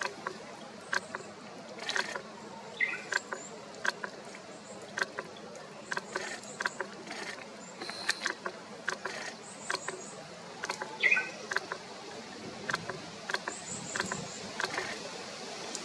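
Small songbirds giving short, high, thin calls, some in quick little groups, with a few lower chirps. Scattered sharp clicks and ticks run among them.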